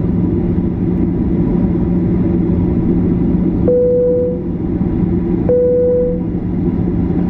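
Steady low rumble of a Boeing 737 taxiing, heard from inside the cabin. A little past the middle come two short single-pitched chimes, a little under two seconds apart, from the cabin chime system.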